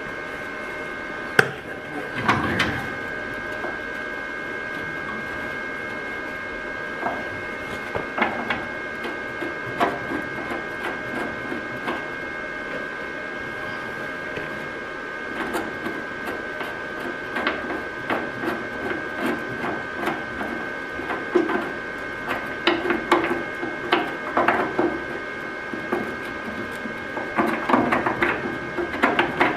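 Electric welding arc crackling and sputtering in short bursts every few seconds, growing denser toward the end, as a Z-bar support bracket is welded to a car's underbody through drilled holes. A steady high-pitched hum runs underneath, and there is one sharp knock near the start.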